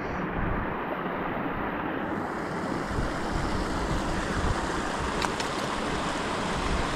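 Steady rushing of a small creek's riffle, mixed with wind noise on the microphone. Two short faint clicks come about five seconds in.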